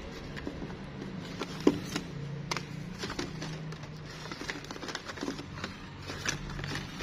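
Stiff cardboard time cards being flipped through and shuffled by hand, with scattered light clicks and taps, the sharpest about a second and a half in, over a low steady hum.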